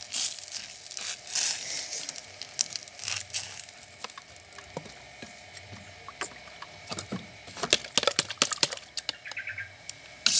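Clicking and scraping of a skewer and utensils against a metal ball-mould pan as fried egg-batter balls are lifted out and the cups are re-oiled, over light sizzling of oil. A run of sharp taps comes about three quarters of the way in.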